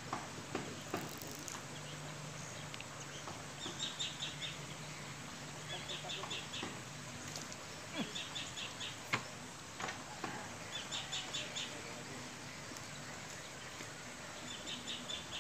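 A bird calling again and again, each call a short, quick, high chattering trill, coming every two to three seconds. A few sharp knocks sound in between.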